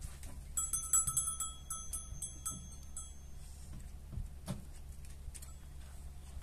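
Metallic jingling, like small bells shaken, starting about half a second in and lasting about two and a half seconds, over a steady low hum.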